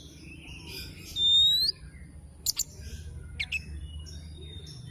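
Oriental magpie-robin (kacer) singing: a loud, clear whistled note a little over a second in, held and then rising at its end. Short sharp upswept notes and softer chirps and chatter follow.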